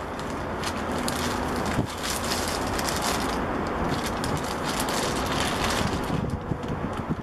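Wind rumbling on the microphone, with crinkling and rustling as a clear plastic bag and leather gloves are handled close by. The crinkling is busiest in the middle.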